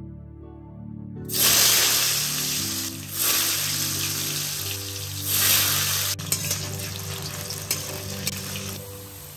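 Turmeric-coated potato chunks sizzling loudly in hot oil in an aluminium wok. The sizzle starts suddenly about a second in and surges twice more as more pieces go in, then settles into steady frying with a few light clicks of a metal spatula against the pan.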